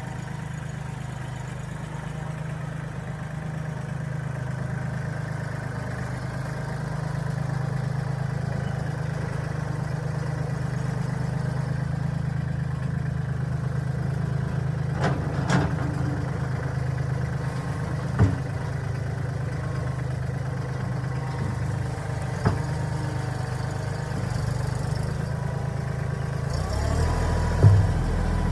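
Mahindra 1626 compact tractor's diesel engine running steadily at low revs, with a few sharp knocks in the middle. Near the end the engine note changes and there is a thump.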